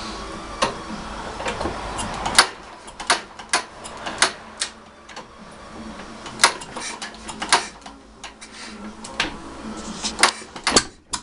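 A 1945 Wolseley WD2 single-cylinder stationary engine with no silencer running with a steady low hum that cuts off about two seconds in. After that come irregular sharp clicks and knocks, one or two a second.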